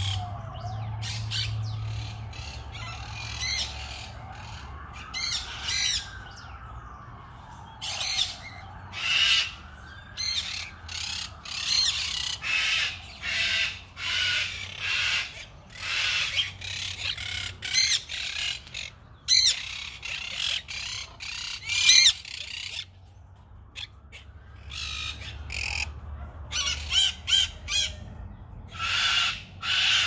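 Caged parrots squawking: short, harsh calls, a few at first and then about one every second.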